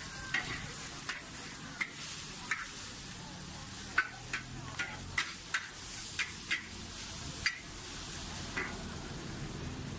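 Char koay teow noodles and egg frying in a large wok with a steady sizzle. A metal spatula scrapes and clacks against the wok about a dozen times at irregular intervals.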